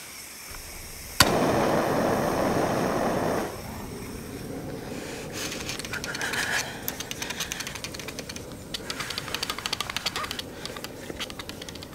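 A handheld butane gas torch on a gas cartridge clicks alight about a second in and burns with a loud, steady rush for a couple of seconds before cutting off. After that comes quieter, rapid scraping and rubbing of wood: a stick spun by hand in a friction-fire attempt, and a knife working wood.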